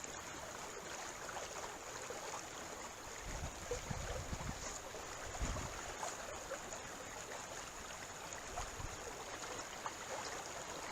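Steady rush of running river water over a riffle, with a few brief low rumbles partway through.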